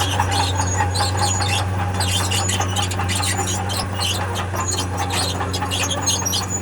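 Steel crawler tracks of heavy earthmoving equipment squealing and clinking continuously in irregular rapid bursts over a steady diesel engine drone.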